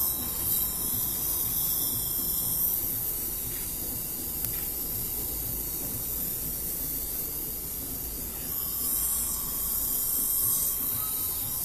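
Steady hiss from dental equipment working at the patient's open mouth, such as suction or spray, swelling slightly near the end.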